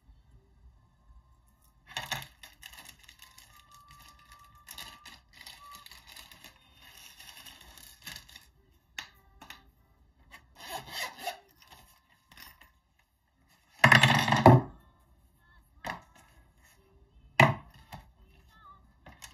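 Small metal keychain hardware and hand tools being handled on a desk: keyrings, chains and pliers clinking, rubbing and being set down in scattered bursts. About two-thirds of the way in there is a louder clatter, and a sharp knock comes near the end.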